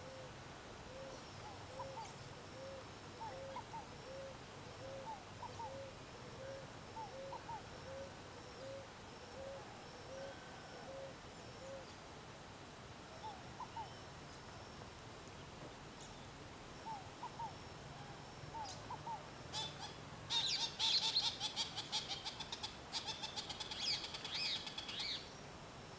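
A ringed kingfisher gives a loud, harsh rattle for about five seconds near the end. Before it, another bird gives a long series of soft, evenly spaced hoots, about one a second, while small birds chirp faintly.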